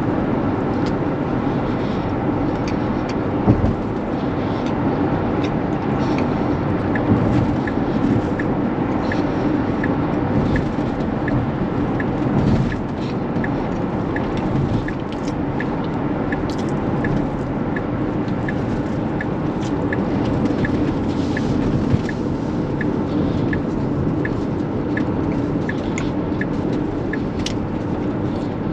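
Tesla Model X electric SUV on the move, heard from inside the cabin as steady tyre and road noise with no engine. From about a quarter of the way in, an even ticking at about one and a half ticks a second, the turn-signal indicator clicking as the car heads for a ramp on the right. A single brief knock comes early.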